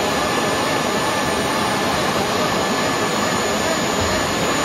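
Hydraulic pumps running steadily under load as they drive an Airbus A320's main landing gear up during a retraction (gear swing) test. It is a continuous rushing hum with a faint high whine.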